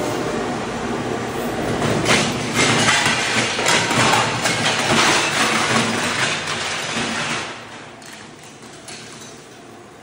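Floor scraper machine driving its blade under ceramic tile on a concrete slab: a loud, crackling scrape of tile breaking loose. It eases off about seven and a half seconds in.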